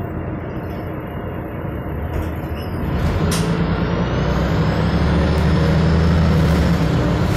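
Van Hool A320 city bus heard from inside the cabin: diesel engine and road noise while driving. About three seconds in the engine grows louder as the bus pulls harder, with a faint whine rising in pitch.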